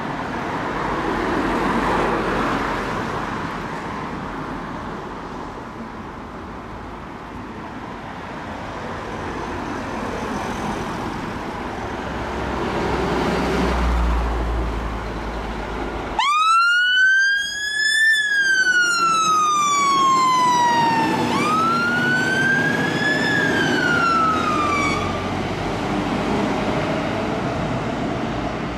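Passing road traffic, then about halfway through a Scania fire engine's siren starts: two slow wails, each rising and then falling, which stop after about nine seconds. Engine and road noise follow.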